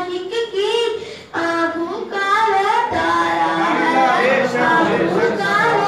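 A young boy reciting a naat unaccompanied, his solo voice drawn out in long, ornamented melodic phrases that rise and fall, with a short break for breath about a second and a half in.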